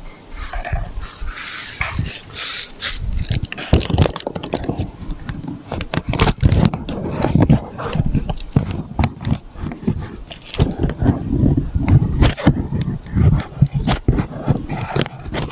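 Plastic piping bag rustling and crinkling as it is handled and squeezed to pipe almond cream into a mold, with irregular rubbing and knocking throughout.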